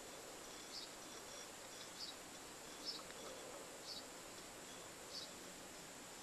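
Faint cricket chirping: a short, high chirp repeating about once a second over a steady low hiss.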